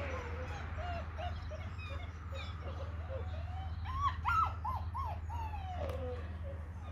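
Malinois puppy whining in a run of short, rising-and-falling whimpers, with a quicker, louder cluster of cries about four seconds in.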